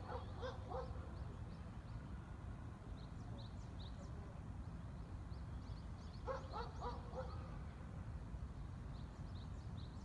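A dog barking in two short runs of quick barks, one at the start and another about six seconds in, with small birds chirping now and then over a steady low rumble.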